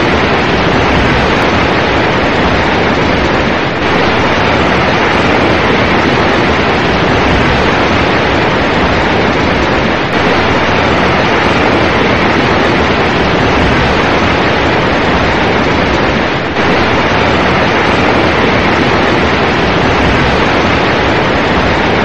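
Large waterfall, heavy falling water making a loud, steady rushing noise with a few brief dips in level.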